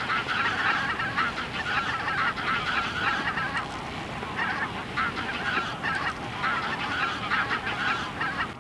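A large flock of greater white-fronted geese calling in flight: a continuous chorus of many overlapping honks.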